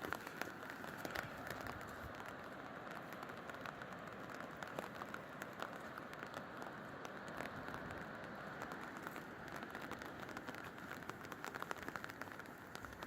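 Steady rain falling, with many small, sharp drop ticks close by over a constant hiss.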